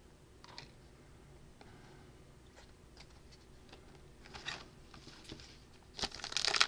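Faint, scattered rustles and soft clicks of trading cards being handled, then about six seconds in the wrapper of a trading-card pack crinkles loudly as it is picked up and worked in the hands.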